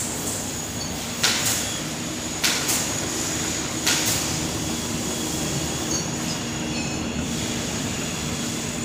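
YSRB 4+2-colour flexo label printing press running with a steady mechanical hum from its rollers and drive. A few short sharp noises break through in the first four seconds.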